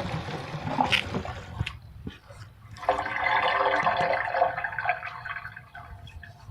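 Water flushing and rushing through a homemade toilet's drain, with a few clicks. A louder surge runs from about three seconds in for about two seconds, then fades.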